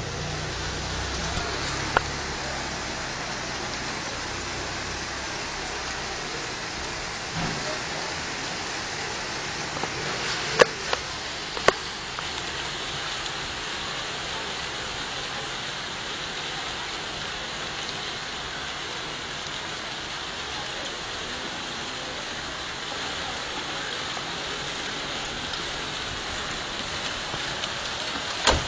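Hail falling in a steady, dense patter on surfaces, with a few sharp knocks about two, ten and twelve seconds in.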